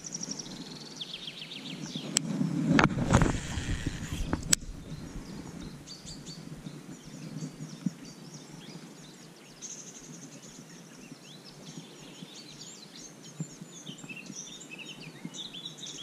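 Songbirds singing over the steady rush of river water. Between about two and four and a half seconds in, a louder bout of close handling noise with two sharp clicks.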